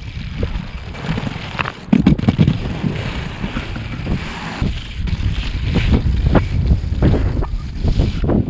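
Rollerblade Metroblade inline skates on 80mm Revolver wheels rolling over rough, cracked asphalt, a steady rolling noise with short scrapes and clicks from the strides and a sharp knock about two seconds in, with wind buffeting the microphone.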